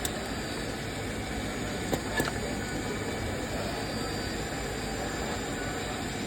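Popcorn vending machine running with a steady mechanical whir while it pops corn, with a couple of faint pops about two seconds in.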